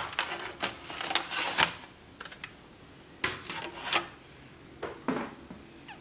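Plastic laptop bottom cover being pried loose and lifted off, its snap-in tabs letting go in a run of sharp, irregular clicks and rattles.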